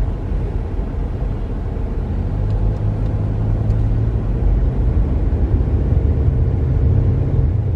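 Steady low rumble of a car driving, engine and tyres on the road, heard from inside the cabin.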